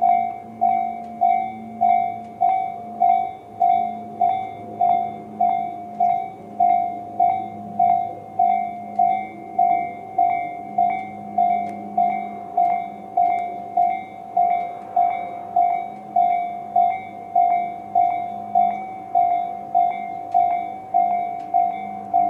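Japanese railway level-crossing alarm, the Tobu 'C' electronic bell sound of the slow-tempo type, ringing a steady run of dings at just under two a second, each one dying away quickly.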